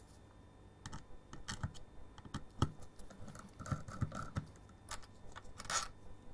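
Irregular light clicks and taps of a screwdriver working a long screw out of the plastic housing of an air pump's diaphragm assembly, the screw and tool knocking against the plastic parts as they are handled. The clicks begin about a second in and come thickest in the middle.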